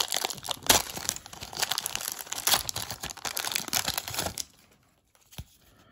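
Plastic wrapper of a 1992 Score Series 2 baseball card pack crinkling and tearing as it is ripped open by hand and peeled off the cards, for about four and a half seconds. After that it goes quiet except for one short click.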